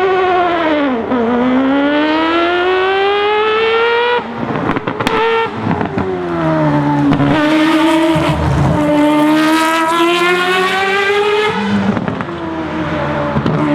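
Le Mans racing car engine accelerating hard, its pitch rising through each gear and dropping at the shifts about four seconds in and again near the end. There are brief crackles as the throttle is lifted at the first shift.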